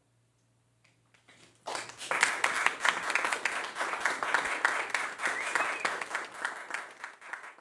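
Audience applauding, breaking out about two seconds in after near silence and thinning out near the end.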